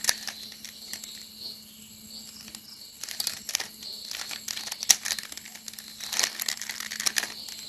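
Plastic Rubik's cube being turned by hand in quick, irregular twists, its layers clicking and rattling.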